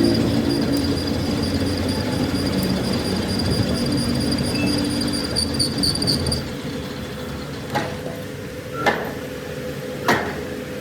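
Workshop machinery running with a steady high whine, which stops about two-thirds of the way through. Three sharp knocks follow.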